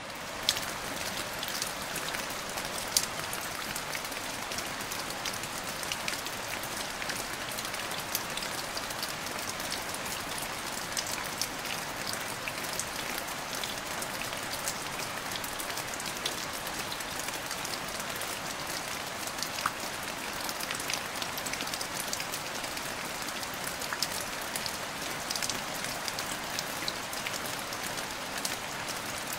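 Steady rain falling on canal water: a constant hiss of countless small drop impacts, with a few louder single drops ticking out now and then, one about three seconds in.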